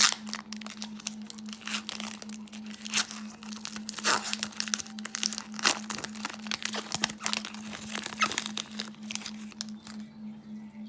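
Foil trading-card pack wrappers crinkling and tearing, with a sharp crackle at the start, as packs are opened and handled.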